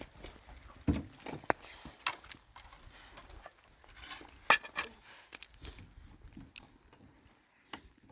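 Dishes and cooking utensils being handled: scattered light clicks and knocks, the sharpest about a second and about four and a half seconds in.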